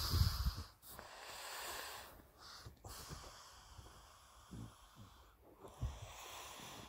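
French bulldog breathing noisily with snorts and wheezes, with a few soft rustles and knocks.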